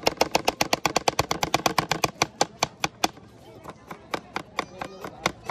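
A long kitchen knife rapidly slicing a red onion held in the hand, each stroke tapping on a plastic cutting board. The taps come about nine a second for the first two seconds, then slow and thin out after about three seconds.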